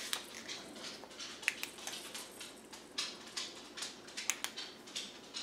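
Scattered light clicks and soft rustles, several a second, over a faint room hum.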